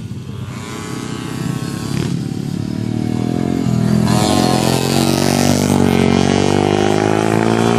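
Pit bike engine revving up and down as the bike rides round the track, getting louder as it comes closer about halfway through.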